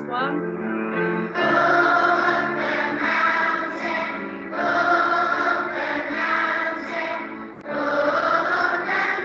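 A song sung in Welsh over a musical backing track, voices singing in phrases with short breaths between them.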